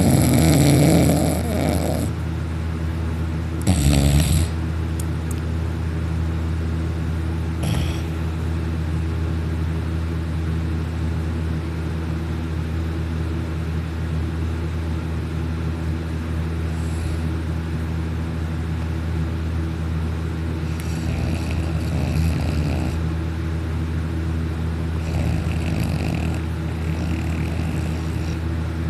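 A young man snoring loudly in a heavy, sedated sleep after taking sleeping pills. A loud snore lasts about two seconds at the start, a shorter loud one follows about four seconds in, and softer snores come later, all over a steady low hum.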